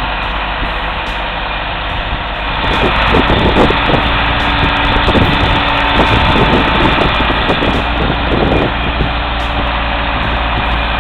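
Heavy diesel engine running steadily, louder for several seconds in the middle with a run of knocks and clanks.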